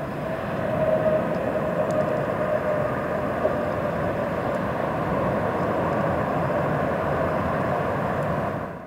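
Twin-engine jet airliner's turbofans running at high power on the runway: a steady rush with a whine. It drops away sharply near the end.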